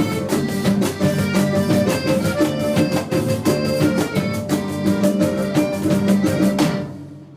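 Live band playing the instrumental opening of a Mexican song with a fast, steady rhythm; the playing drops away near the end.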